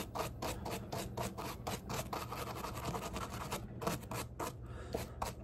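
A small brush scrubbing oil residue off rust-dissolver-cleaned steel bolts in quick back-and-forth strokes, about four or five a second, thinning out near the end.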